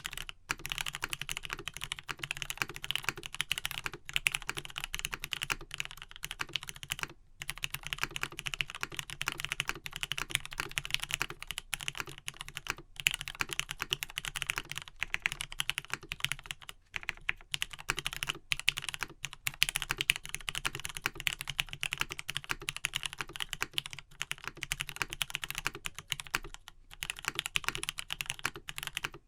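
Steady fast typing on a Matrix 1.2OG mechanical keyboard with lubed Gateron Pink switches on 70g springs, a full aluminium plate and vintage Cherry doubleshot keycaps: a dense run of keystroke clicks broken by a few short pauses.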